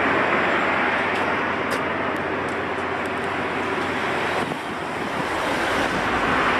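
Steady road traffic noise, a continuous rushing hiss, dipping briefly about two-thirds of the way through.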